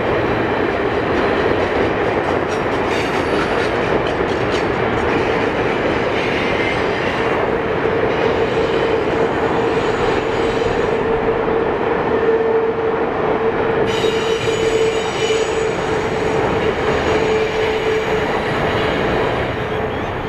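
Heavyweight passenger cars of a train rolling past on the rails with a steady rumble. A steady high wheel squeal sets in about a third of the way through and holds for most of the rest.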